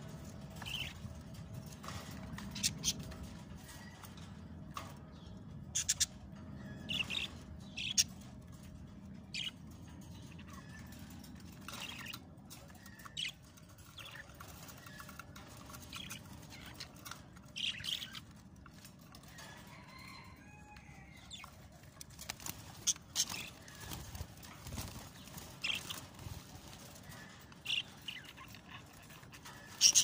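Caged budgerigars chirping in short, scattered calls, with a few louder bursts of chirps around six to eight seconds in and again near the end.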